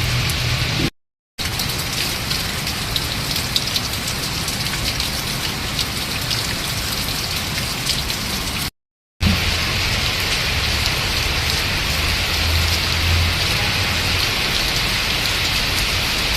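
Steady rain falling, with scattered drop ticks; the sound cuts out completely for a moment twice, about a second in and about nine seconds in.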